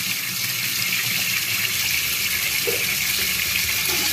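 Kitchen tap running steadily into a steel bowl of leafy greens in a stainless steel sink, rinsing the leaves.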